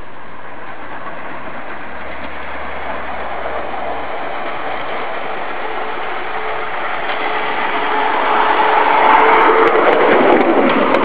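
Battery-electric ride-on railcar chassis, both axles motor-driven on 24 volts, running along the track: a steady noise of steel wheels on rails with a faint motor whine. It grows louder for the last few seconds as the car comes close, with a few sharp clicks near the end.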